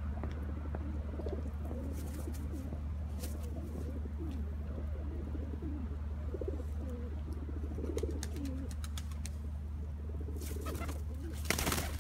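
Feral pigeons cooing over and over in low, wavering calls, with a few sharp clicks of beaks pecking at a hand. A short flurry of wingbeats comes near the end.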